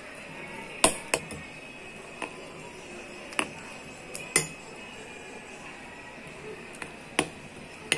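Steel spoon clinking against a glass bowl while stirring gram-flour (besan) batter: about eight sharp, irregular clinks, the loudest about a second in and just past four seconds.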